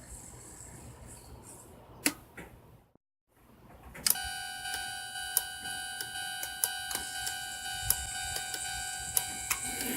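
O-gauge model railroad crossing signal starting about four seconds in: a steady electronic warning tone with sharp clicks about twice a second. Before it come a few faint clicks and a brief silent gap.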